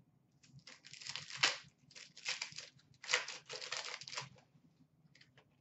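Foil wrapper of an Upper Deck hockey card pack crinkling and being torn open, in three crackly stretches over about four seconds.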